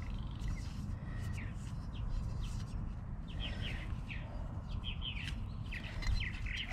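Small birds chirping: short, falling chirps at irregular intervals over a low steady background rumble.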